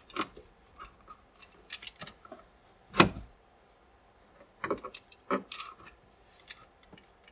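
Plastic dash trim panel and its clips clicking and snapping as the panel is worked loose with a flathead screwdriver: scattered light clicks, with the sharpest snap about three seconds in.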